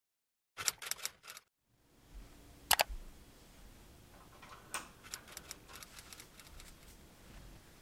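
Horizontal window blinds being opened, the slats giving a scatter of light clicks and rattles in the second half. Before that come a quick run of four sharp clicks about half a second in and one louder click near three seconds.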